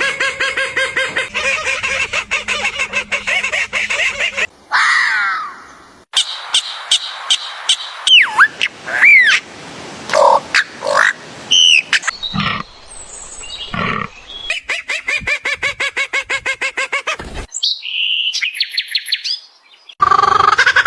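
A string of different bird and animal calls, changing abruptly every few seconds: rapid repeated calls, chirps and whistling glides that rise and fall.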